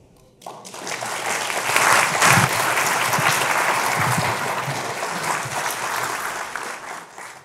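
Audience applauding, starting about half a second in, swelling for a couple of seconds and then slowly dying away.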